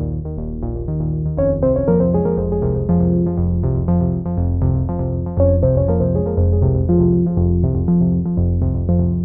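Background instrumental music: a quick, steady run of keyboard-like notes over a bass line, growing fuller about a second and a half in.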